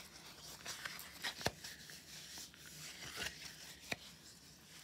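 Hands rubbing and kneading a glycerine-soaked cardboard toilet roll tube on newspaper: soft wet rubbing and rustling with a few scattered sharp clicks.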